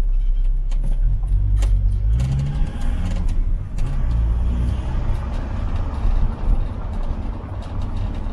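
A car driving: its engine running under a steady road rumble. The engine's pitch rises briefly about two seconds in as it speeds up.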